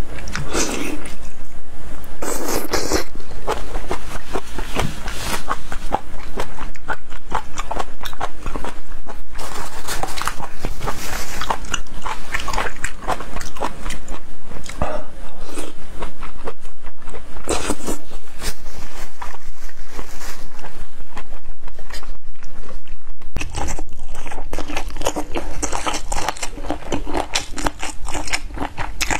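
Close-miked mukbang eating: loud, continuous chewing and lip-smacking as sauce-dipped seafood is bitten and eaten. About three-quarters of the way through the sound changes as a second eater starts chewing a dish of spicy chicken feet.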